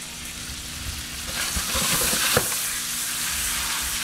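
Checkered puffer fillets sizzling in garlic-infused olive oil and butter in a stainless frying pan. The sizzle swells about a second and a half in, with a short knock of the pan near the middle, then settles to a steady sizzle.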